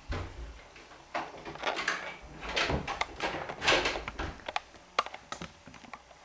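Footsteps and a door being handled and shut, a run of irregular knocks and rustles with a sharp click about five seconds in.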